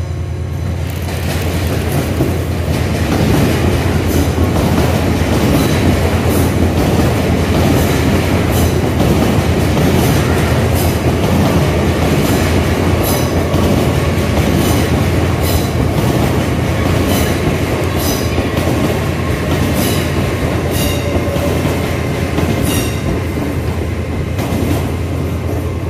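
An LNER Azuma train running past at low speed, its wheels clicking in a regular rhythm over the rail joints above a steady rumble and hum. The sound builds up about a second in and stays loud as the carriages go by.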